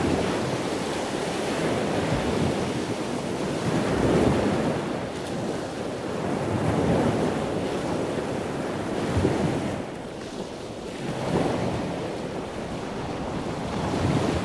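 Sea water washing and rushing with wind buffeting the microphone, swelling and easing every two to three seconds.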